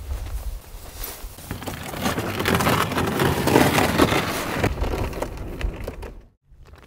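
Plastic ice-fishing sled dragged across pond ice: a grainy, crackling scrape that builds over the first couple of seconds, peaks in the middle and fades, with wind rumbling on the microphone. It cuts off suddenly near the end.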